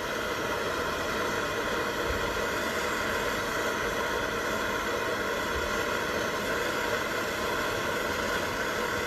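Torch flame hissing steadily as it heats a 4/0 copper lug to solder the cable into it.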